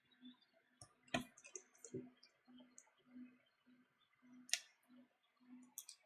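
A few faint, sharp clicks and taps of small parts and tools being handled on the opened tablet, over a faint low hum that pulses about twice a second.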